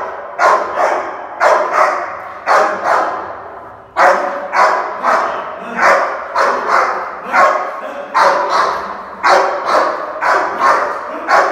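Rottweiler barking angrily and repeatedly, mostly in quick pairs, with a short pause about three seconds in: barking from food aggression.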